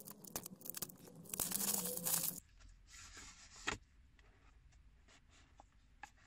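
Plastic shrink-wrap being torn and crinkled off a small cardboard box by nitrile-gloved hands; the crackle is loudest about two seconds in and cuts off sharply. It is followed by a few faint cardboard scrapes and taps as the box is opened.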